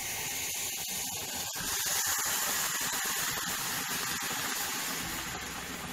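Hot tea poured into a red-hot roasted clay kulhad, sizzling and hissing as it boils up and foams over into a steel bowl. The hiss grows louder about a second and a half in and eases near the end.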